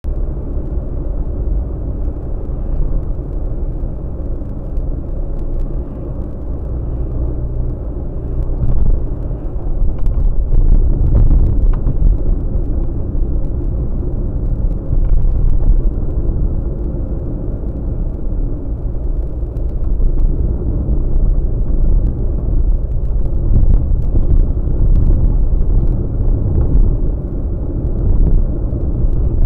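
A car driving, heard from inside its cabin: a steady low rumble of engine and road noise that gets louder about nine seconds in and swells and eases after that.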